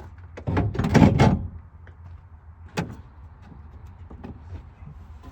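Tail light unit being worked free of the car's rear panel and unplugged: a loud scraping rustle of plastic about a second long, then a single sharp click.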